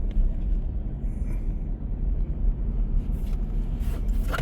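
Steady low rumble of a car driving slowly, heard from inside the cabin, with a couple of short clicks near the end.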